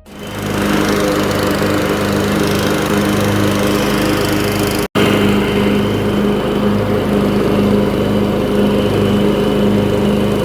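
A small engine running steadily at constant speed, with a brief break about five seconds in.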